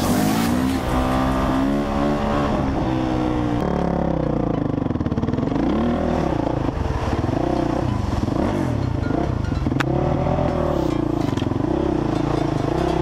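Honda CRF 450 R's single-cylinder four-stroke engine revving up and down again and again as the bike is ridden off-road.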